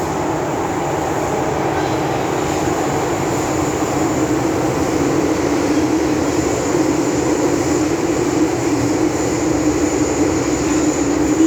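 Metro-Cammell M-Train electric multiple unit running at speed between stations, heard from inside the carriage: a steady rumble of wheels and running gear with a faint high whine.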